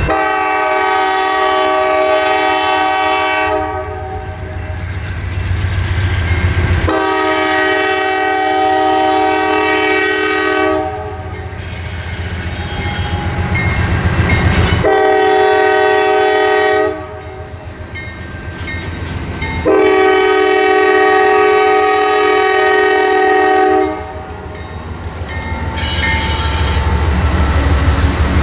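CSX freight locomotive's air horn sounding the grade-crossing signal: two long blasts, a short one and a final long one, warning of the train's approach to the crossing. Between the blasts the locomotive's diesel engine rumbles, growing louder near the end as it reaches the crossing.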